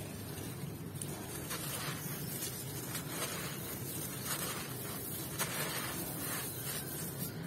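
Molded sand-and-gravel cement shapes crumbling under the fingers: repeated gritty crunches and the hiss of loose grit and sand pouring out of the hands, over a steady low hum.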